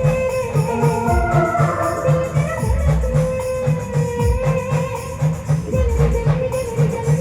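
Band-party music: an organ-like keyboard melody held over a steady, driving drum beat with shaker or tambourine.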